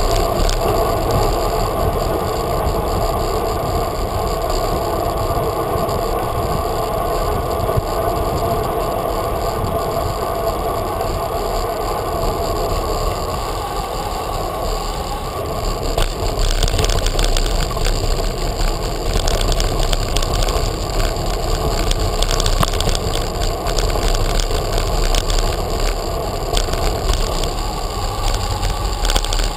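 Bicycle riding over a street: steady rolling noise from the tyres, with the bike's rattle. About halfway through it gets louder and rougher, with a deeper rumble and many small knocks and clicks as the surface gets bumpier.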